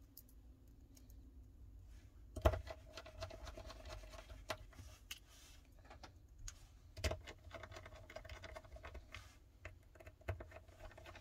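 Small clicks and scratches of a precision screwdriver driving tiny screws into a smartphone's metal antenna plate, with a sharper knock about two and a half seconds in and another about seven seconds in.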